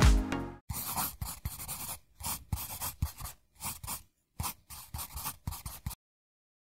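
Background music ending, then a string of short, irregular scratching sounds that stop abruptly about six seconds in.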